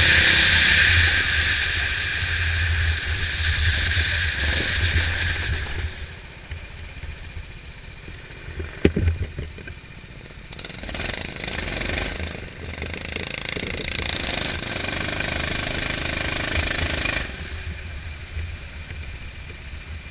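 Go-kart engine heard from the driver's seat, running loud at speed and then dropping away about six seconds in as the kart slows off the track. A short sharp thump comes near the middle, the engine picks up again for several seconds at low speed and then falls quieter near the end as the kart stops.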